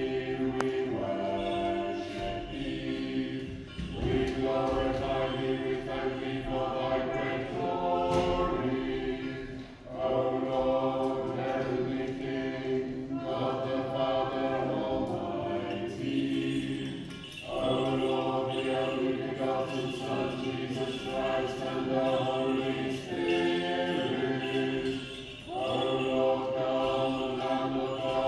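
Unaccompanied Orthodox liturgical chant, sung in long phrases with a short break between each.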